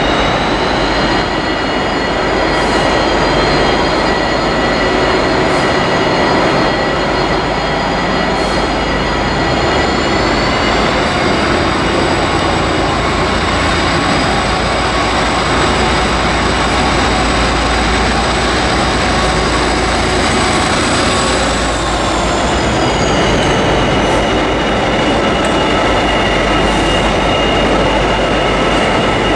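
Pair of Class 57 diesel locomotives, EMD two-stroke V12 engines running, moving slowly along the platform. A loud steady engine rumble is overlaid by a high whine that steps up in pitch about ten seconds in and falls back again around twenty-two seconds.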